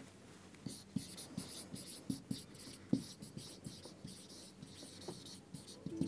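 Marker pen writing on a whiteboard: a faint run of short, irregular strokes as a phrase is written out.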